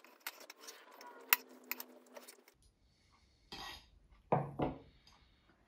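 Knife cutting down through the crumbly streusel topping of an apple cake, with many small crackles and clicks and one louder click a little over a second in. After a short pause, a few brief knocks and scrapes as the knife is drawn out and the slice worked loose.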